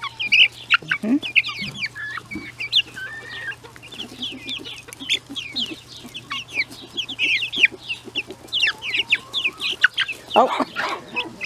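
Young chickens peeping in quick, short, falling chirps with some lower clucks, busy and excited as they crowd to be fed bread by hand.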